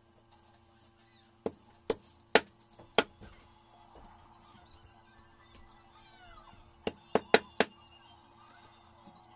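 Meat cleaver chopping raw chicken on a wooden chopping block. There are four sharp chops over about a second and a half, a pause, then four more in quick succession near the end.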